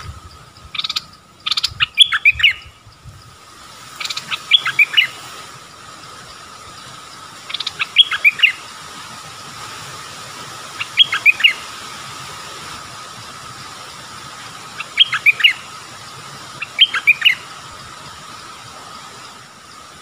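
Bulbul singing short bright phrases, each a quick run of a few notes, repeated about every two to four seconds, over a steady faint background drone.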